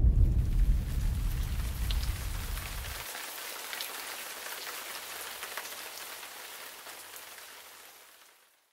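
Steady rain hiss with light patter and crackle, fading out to silence near the end. Under it a deep rumble dies away and cuts off about three seconds in.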